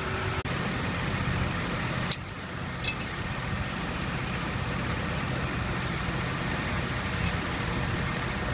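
Tow truck engine idling steadily, with two sharp knocks a little under a second apart about two seconds in; the second knock rings like metal.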